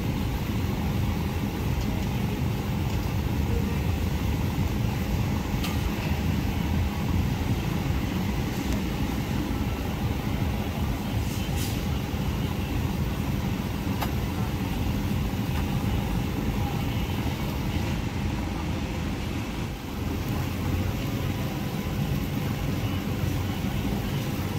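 A steady low drone of a motor, with a few faint clicks over it.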